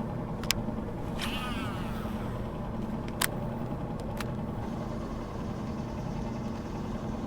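A motor running with a steady, even hum, with a few sharp clicks and a short warbling sound about a second in.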